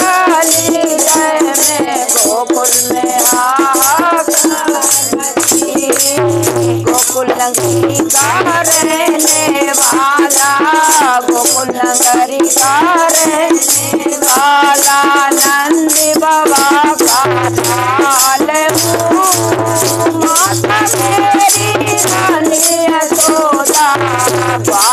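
Group of women singing a Hindi devotional folk bhajan together, kept in time by steady hand clapping and a shaken rattle.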